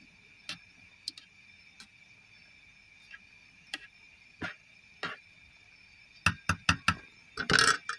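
Small wire-mesh strainer clicking and tapping against an aluminium nesting pot while vegetables are stirred in boiling water: scattered light taps, then a quick run of four sharp taps about six seconds in and a louder short clatter near the end.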